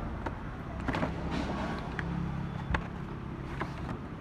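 Steady low engine hum with a few sharp clicks and knocks scattered over it, the loudest near the middle.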